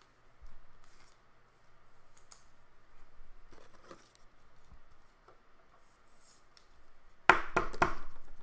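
Trading cards and plastic card holders being handled by hand: faint rustling and small clicks, then about seven seconds in a short run of loud, sharp clicks and rustles.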